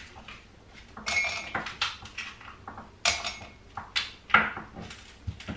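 Ice cubes dropping into a cup: several separate sharp clinks, each with a short ring.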